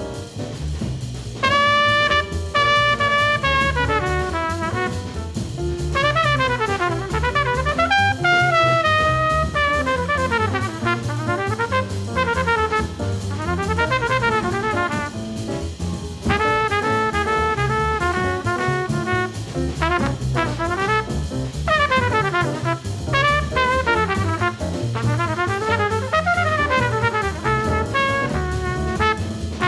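1950s small-group bebop jazz: a horn solo of fast lines that run up and down, over a rhythm section of piano, bass and drums.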